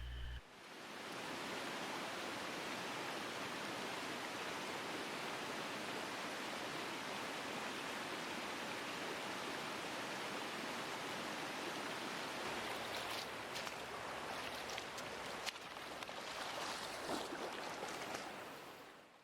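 Steady rushing of a mountain trout stream's current, with a few brief sharper sounds over it in the last few seconds before it fades out.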